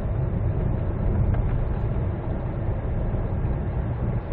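Steady in-cabin drone of a 2012 Hyundai Santa Fe CM cruising at highway speed: a low rumble of engine and tyre noise, the car running quietly.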